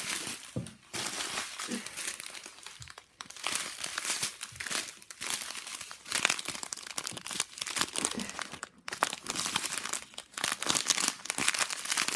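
Small plastic bags of diamond-painting drills crinkling as they are picked up and handled, in stop-start spells of rustling with short pauses.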